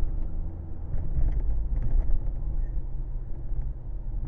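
Steady low rumble of a car in motion: engine and road noise.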